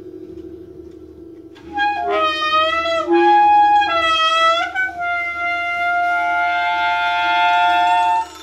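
Saxophone and trumpet in a free-improvised passage over a steady low drone. The horns come in about two seconds in with long wavering, bending notes, then hold several notes together, and cut off sharply near the end.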